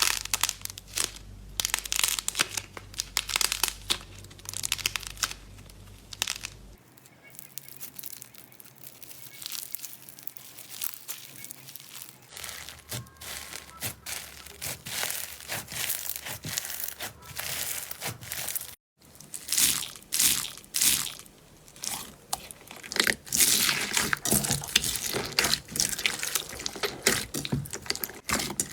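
Slime being squeezed, poked and stretched by hand, giving dense, irregular crackling, crunching and squelching pops. It breaks into several separate clips, with a sudden cut about two-thirds of the way through.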